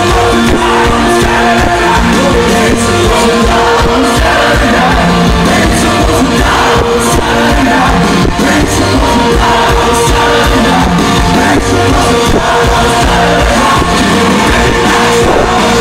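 Rock band playing live at high volume, with electric guitar, drums and a lead singer.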